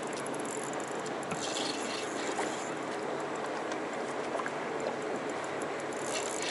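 Lake water lapping against a bass boat's hull with steady wind noise, and two short hissing bursts, about a second and a half in and again near the end.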